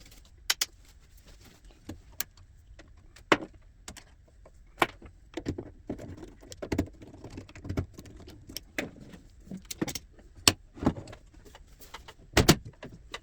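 Irregular clicks, taps and light clatter of cables, connectors and small metal parts being handled and unplugged on a bench, with a sharp double click near the end.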